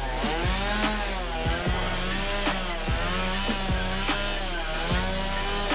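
Stihl MS170 two-stroke chainsaw running and cutting into wood, rounding off a carving's trunk; its pitch dips and rises again and again as the chain bites and eases off.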